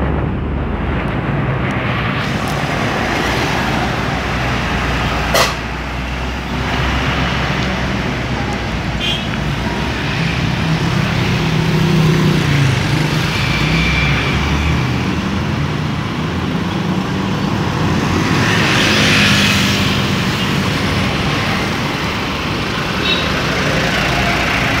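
Road traffic going past: trucks, a bus, cars and motorcycles, with engines rumbling and swelling as heavier vehicles pass. One sharp knock about five seconds in.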